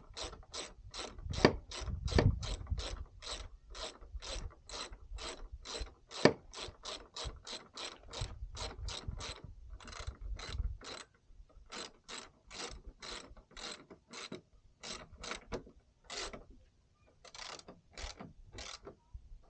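A hand ratchet clicks in quick, steady strokes as it tightens a fastener back down, with a few louder clunks early on. Past the halfway point the clicking comes in shorter runs with brief pauses.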